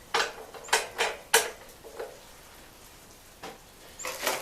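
Steel nuts, bolts and tools clinking against the sawmill's metal parts during assembly: a quick run of sharp metallic clinks in the first two seconds, a pause, then a few more near the end.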